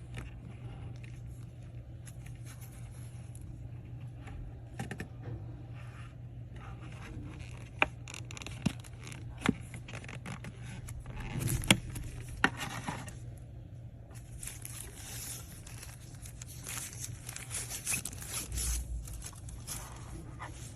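Hands handling and unpacking a small electronic gadget and its packaging: rustling, scraping and crackling, with several sharp clicks and taps in the middle, over a steady low electrical hum.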